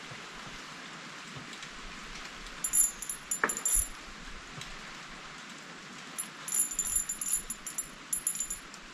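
Steady rain falling, with two clusters of short, high-pitched tinkling pulses, one about three seconds in and a longer one from about six seconds in.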